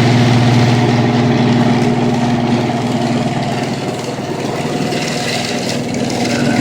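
Electric garage door opener running as it raises the door: a steady, loud motor hum.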